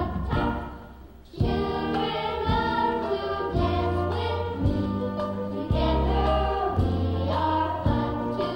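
Music: a song with a group of voices singing over a backing track. It fades out about a second in and comes back in strongly a moment later.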